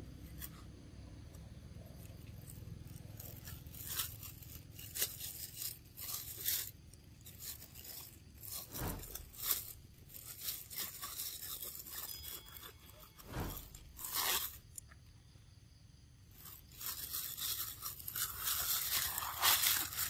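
Irregular crunches, scrapes and tearing sounds of macaques gnawing and tearing at whole mangoes, among rustling in grass and dry leaves. The rustling grows busier near the end.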